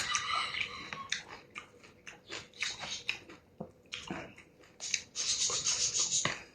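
A person eating noodle soup close to the microphone: chewing and mouth noises in short strokes, with a sharp click at the start and a longer, louder noisy stretch near the end.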